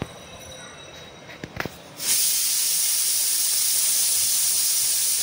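A couple of light clicks, then a loud, steady hiss of escaping gas or steam that starts abruptly about two seconds in and holds evenly for about four seconds.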